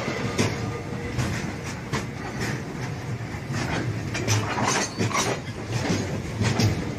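Freight wagons rolling past on the track, their wheels clacking over the rail joints over a steady rumble.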